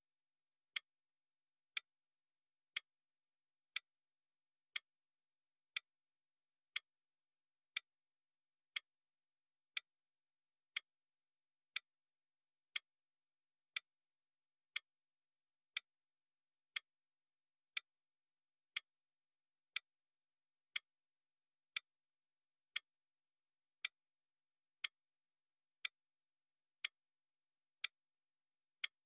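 Countdown timer ticking, one short, sharp tick each second with silence between.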